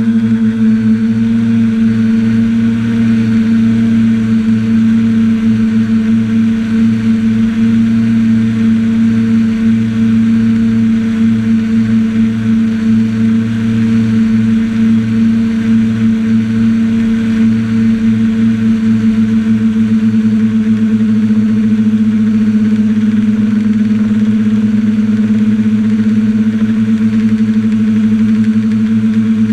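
Quadcopter's electric motors and propellers droning at a steady pitch, heard close up from the camera carried on the craft in flight.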